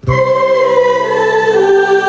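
Yamaha Genos keyboard playing its Mixed Choir ensemble voice: a sustained choir chord that starts sharply, with the chord changing about halfway through.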